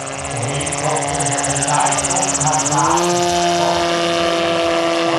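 Electric motor and pusher propeller of a giant-scale RC MTOsport autogyro model (Hacker A150-10 motor) running in flight: a steady tone that rises in pitch a little under three seconds in and then holds.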